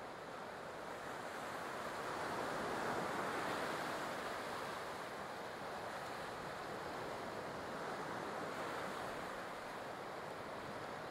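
Ocean surf washing ashore, a steady hiss of waves that swells a few seconds in and again more gently later on.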